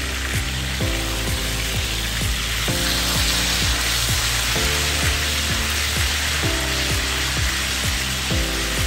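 Rump steak frying in butter and oil in a nonstick pan: a dense, steady sizzle. Background music with a steady beat plays underneath.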